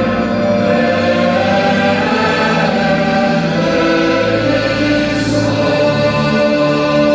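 Large choir singing with a symphony orchestra, in long held chords.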